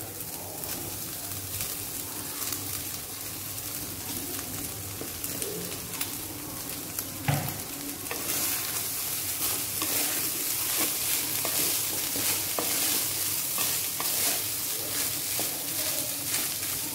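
Wooden spoon stirring and scraping cooked rice into grated coconut tempering in a hot metal kadai, over a steady sizzling hiss. A soft thump about seven seconds in as the rice goes in, after which the sizzle and scraping grow louder.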